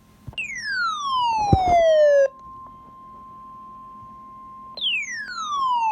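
Emergency alert audio: two loud falling siren-like sweeps, each dropping in pitch over about two seconds, the second starting near the end, over a steady single-pitch alert tone near 1 kHz, typical of the NOAA Weather Radio warning alarm tone. A short low thump about a second and a half in.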